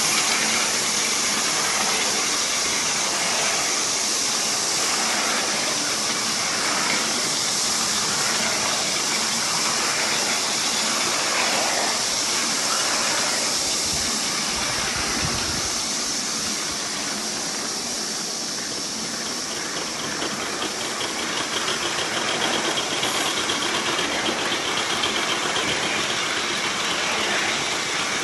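3½-inch gauge Heilan Lassie live-steam model locomotive, a Gresley A3 Pacific in miniature, running under steam: a steady hiss of steam and exhaust, with a faster rhythmic beat coming through in the last several seconds.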